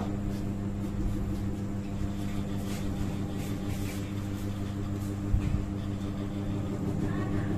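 Electric hair clipper running with a steady hum, with a brief knock about five seconds in.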